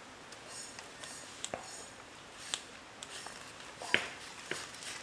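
A few scattered light taps and rustles from hands handling a raw chicken wing on a wooden chopping block, pressing and rubbing seasoning into it. The loudest tap comes about four seconds in.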